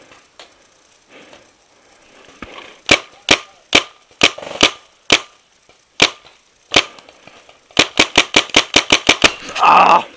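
Tippmann X7 paintball marker firing: sharp single shots about half a second apart, then a fast string of about ten shots near the end.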